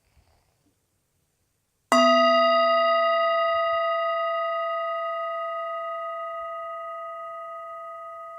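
A struck meditation bell rings once about two seconds in, with a clear, steady chord of tones that fades slowly and is still ringing at the end.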